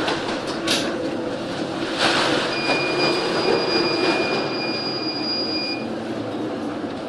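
Train running, with a steady high-pitched squeal held for about three seconds in the middle and a couple of sharp clicks near the start.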